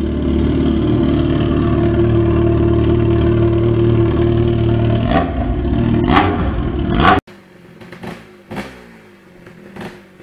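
A loud, steady engine-like drone with two swishes near the end, cutting off abruptly about seven seconds in. Then a much quieter dirt bike engine is heard on a rough forest trail, with a few knocks.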